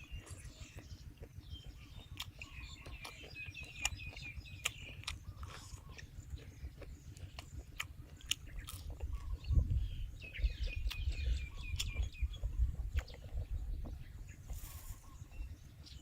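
Crispy batter-fried squid being bitten and chewed, with many small crunches. Birds chirp in two short trilling runs in the background.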